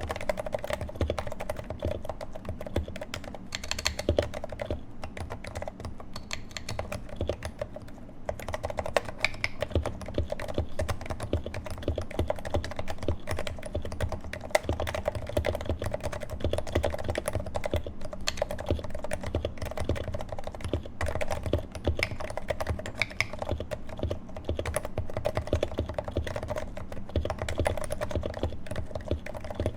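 Continuous fast typing on a Leopold FC660C Topre keyboard with 55 g switches, in a heavy Norbauer Heavy-6 case: a dense, uneven stream of keystrokes. The sliders are Novatouch sliders lubed with Tribosys 3204, with Silence-X rings to damp bottoming out, and the keycaps are GMK.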